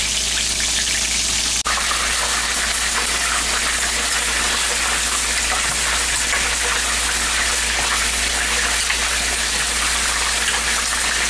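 Breaded chicken frying in hot oil in a cast iron skillet: a steady, dense sizzle and crackle, with a brief break about one and a half seconds in.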